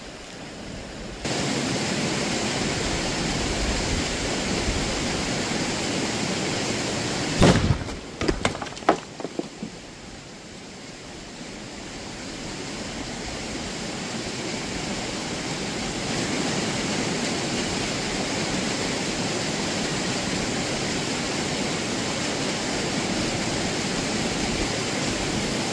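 A gunpowder charge packed in a drill hole in a boulder goes off with one sharp bang about seven seconds in, splitting the rock. A few smaller sharp cracks follow over the next second or so, over a steady rushing noise.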